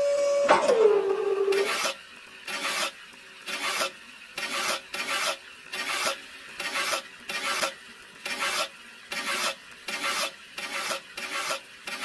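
A small electric motor whines, then drops in pitch and stops within the first two seconds. After that, a small metal tool scrapes wet cement mortar across sheet metal in short rasping strokes, about two a second.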